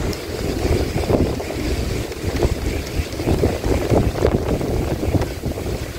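Wind buffeting the microphone on a small boat at sea: an uneven low rumble that rises and falls with the gusts.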